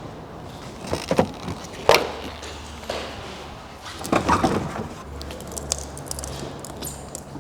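Workshop work sounds: a few sharp metallic clicks and knocks from tools and parts being handled, with a low steady hum underneath for a few seconds at a time.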